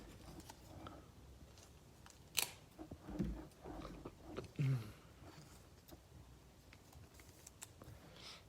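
Trading cards and pack wrappers being handled: faint rustling and soft clicks, with one sharper click about two and a half seconds in.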